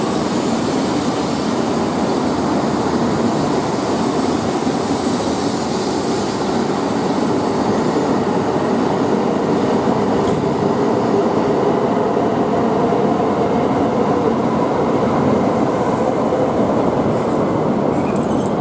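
E2-series Shinkansen pulling out of the platform and moving past, a steady rush of wheel and running noise that grows a little louder partway through.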